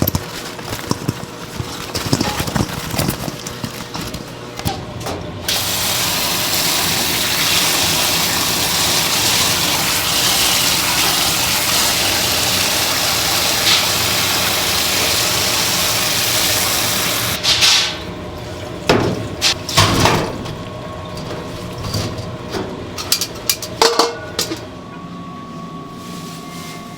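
A steady stream of running water, most likely from a tap, that starts about five seconds in and stops abruptly some twelve seconds later. Light clicks and clatter of kitchen utensils come before it, and sharper knocks follow after it stops.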